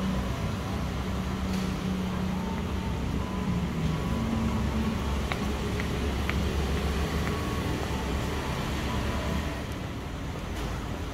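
Steady hum of road traffic, engines running, with a few faint ticks around the middle; the level eases off slightly near the end.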